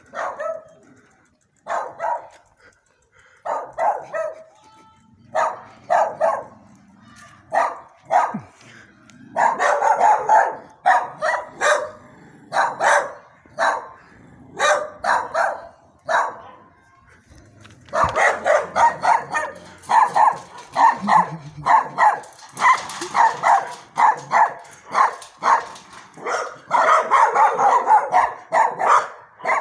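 A dog barking over and over: single barks a second or two apart at first, then fast strings of barks through the second half.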